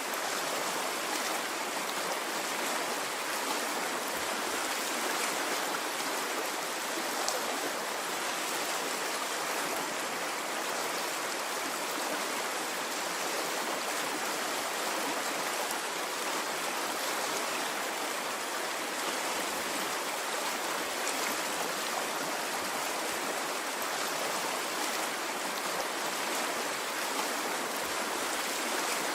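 Stream of water flowing with a steady, even rush and no swells.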